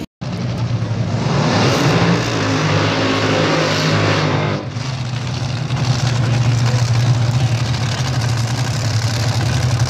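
Top Fuel dragster's supercharged, nitromethane-burning V8 running loud and rough, easing off about four and a half seconds in and then running at a steady, heavy idle.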